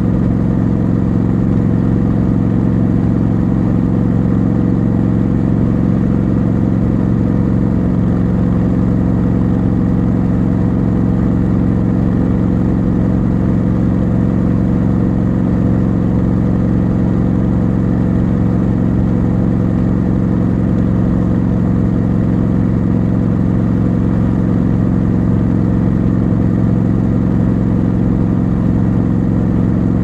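Triumph Scrambler motorcycle engine running at a steady cruise, its note holding one even pitch throughout.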